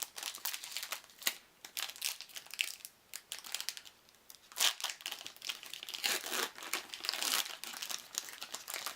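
Trading-card booster-pack wrapper being crinkled and torn open by hand, a run of irregular crackles with a few louder rips.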